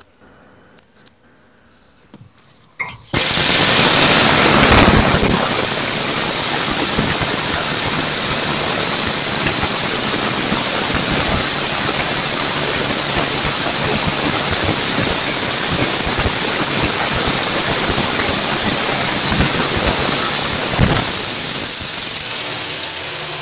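Jigsaw with a fine-toothed bimetal blade cutting 6 mm steel plate. It starts abruptly about three seconds in and runs loud and steady, with a strong high-pitched edge from the blade on the steel. It tails off near the end.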